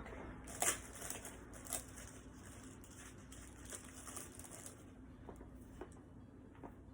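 Quiet rustling and crinkling of packaging being handled, with a few light clicks and taps. The rustling fades out about five seconds in.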